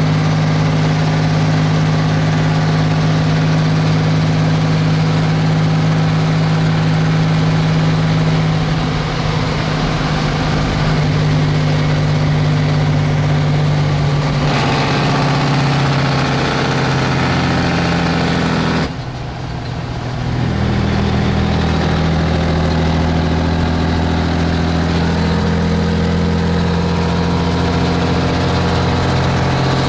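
Straight-piped Cummins 855 small-cam inline-six diesel of a 1965 White Freightliner truck pulling on the road, heard from inside the cab. About two-thirds of the way through it briefly drops away and comes back in at a lower pitch, as when the driver shifts up a gear.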